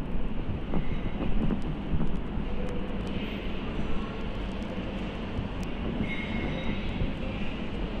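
KDK industrial ceiling fans running at speed: a steady rush of air with a low rumble underneath. It is louder and more uneven for the first two seconds, then settles.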